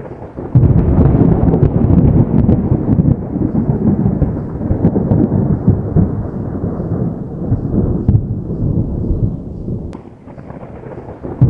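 Distant thunder: a sudden crack about half a second in, rolling into a long low rumble that slowly fades over about nine seconds. A second thunderclap breaks in at the very end.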